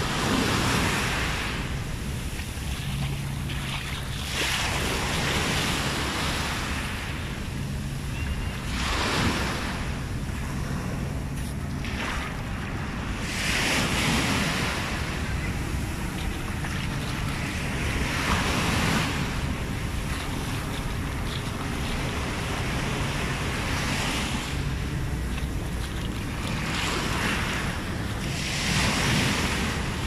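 Small waves breaking and washing up over a sandy beach, the hiss of the surf swelling about every four to five seconds, with wind buffeting the microphone.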